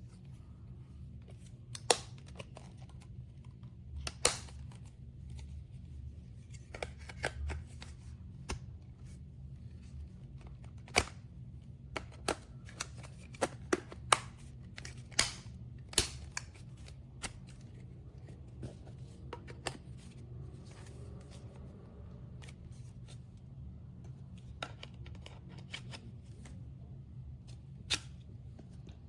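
Objects being handled by hand: scattered sharp clicks and taps with some rustling, over a low steady hum.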